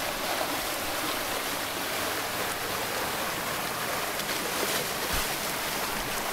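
Fast-flowing river rapids rushing steadily, white water running over rocks.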